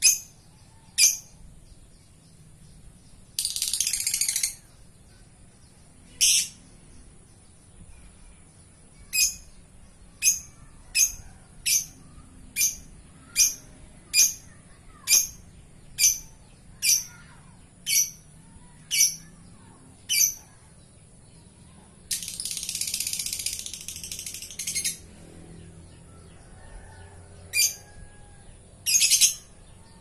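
Lovebird calling: sharp, high chirps about one a second, broken twice by a rapid chattering trill (ngekek), a short one about three seconds in and a longer one of about three seconds past the twenty-second mark.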